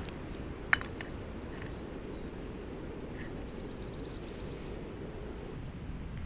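A small bird gives one fast, high trill of about ten notes a second, lasting a little over a second, over a steady low rushing outdoor background. A single sharp click about a second in is the loudest sound.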